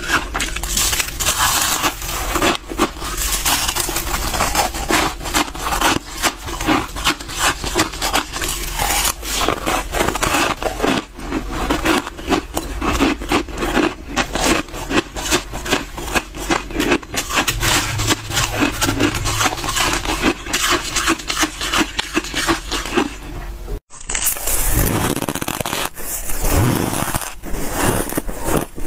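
Freezer frost being scraped and crunched up close, a dense, continuous run of gritty strokes. It stops abruptly for an instant about 24 seconds in, then the crunching carries on.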